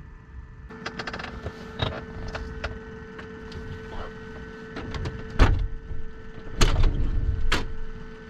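Clicks, knocks and a few louder thumps of objects being handled on a small table, including charging cables, over a steady hum that starts about a second in.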